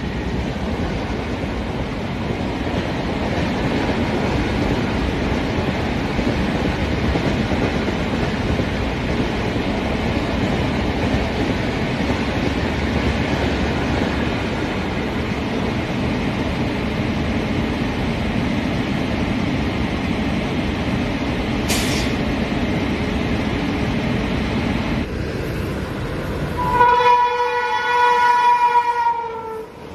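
Express train coaches rolling past at speed, a steady rumble of wheels on rail. Near the end an Indian Railways WAP-7 electric locomotive sounds its horn in one long blast of about two and a half seconds, the loudest sound, sagging slightly in pitch as it ends.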